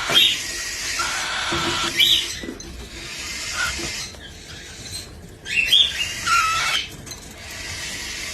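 A small bird giving short, high squeaky calls several times over a steady hiss, with a cluster of calls near the end.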